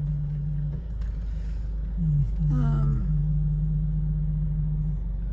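Car cabin while driving: a steady low engine hum and road rumble, the hum dipping in pitch now and then. A short wordless voice sound comes about two and a half seconds in.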